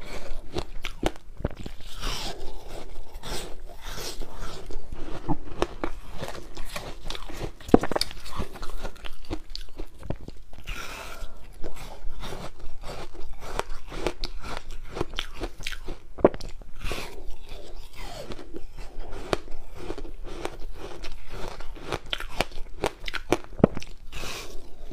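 Frozen ice mixed with passion fruit being bitten and chewed close to a clip-on microphone: a dense, continuous run of crisp crunches and crackles.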